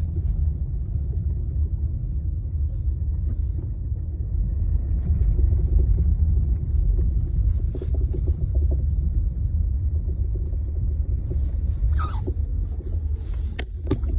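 Steady low road rumble from a LADA Vesta NG on the move, with short knocks from the suspension about eight seconds in and several more near the end. These are the unwanted suspension noises the owner is complaining about on a car only 5,100 km old.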